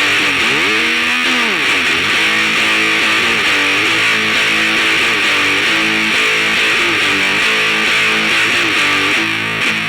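Heavily distorted electric guitar playing punk-style chords, through amp impulse-response simulation, with a pitch bend that rises and falls about a second in.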